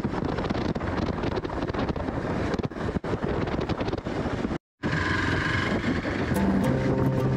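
Hero Xpulse 200 motorcycle being ridden, its single-cylinder engine running under heavy wind rush on the microphone. The sound cuts out completely for a moment about four and a half seconds in, then the riding noise resumes.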